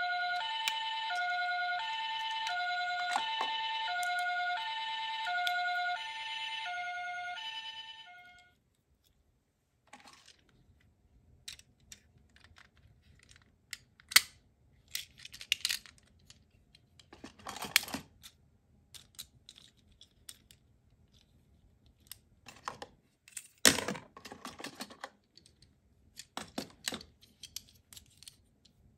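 Toy ambulance's electronic two-tone siren, alternating a higher and a lower note about once a second in the Japanese 'pee-poh' ambulance pattern, fading out about eight seconds in. After a short pause come small plastic clicks and snaps as a transforming ambulance robot toy is folded and fitted together, a few of them sharper and louder.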